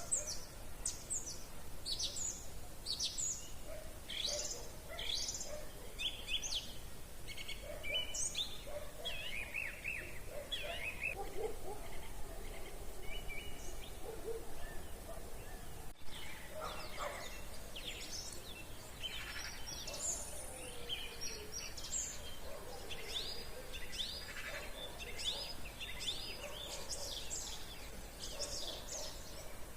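Several songbirds singing in an evening chorus: many short, high whistled phrases and chirps overlapping throughout, with fainter lower notes underneath, over a steady outdoor background hiss.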